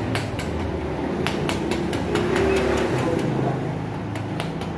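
A dozen or so sharp metallic clicks and taps at irregular intervals, over a steady low rumble. They fit tools and engine parts knocking together while a motocarro engine is reassembled.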